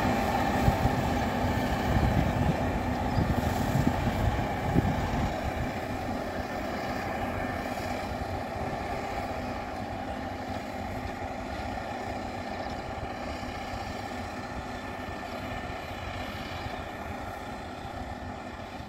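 T-150K tractor's YaMZ-236 V6 diesel running steadily under load as it pulls a cultivator. Its note fades gradually as the tractor moves away.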